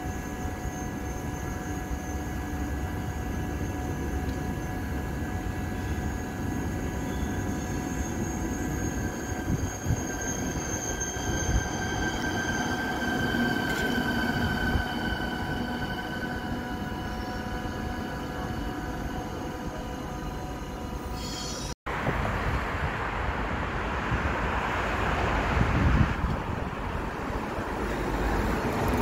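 A DB class 102 electric locomotive and double-deck regional train moving along a station platform, with a steady high whine of several tones over the rumble of the wheels. After a sudden cut about three-quarters of the way through, a blue electric multiple unit approaches on open track, its rolling rumble growing louder.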